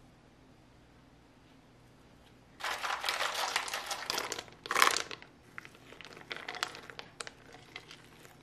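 Fresh blueberries tipped from a plastic container into a glass bowl of muffin batter, starting a few seconds in: a dense rattling and rustling with one louder clatter near the middle. Then softer scattered clicks as a silicone spatula folds the berries into the batter.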